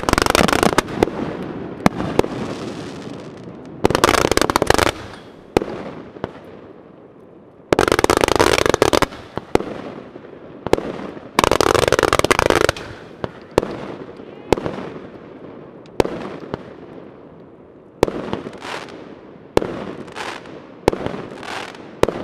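Ground-launched fireworks going off: four dense volleys of crackling, each about a second long and about four seconds apart, mixed with sharp cracks. In the second half come single sharp bangs, roughly one a second, each dying away quickly.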